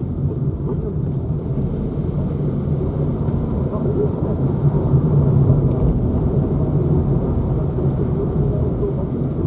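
Car cabin noise while driving: a steady engine and road rumble.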